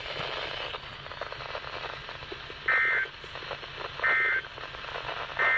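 NOAA Weather Radio broadcast hissing through the receiver, then three short two-tone data bursts about a second and a half apart: the EAS/SAME end-of-message (NNNN) code that closes the alert test.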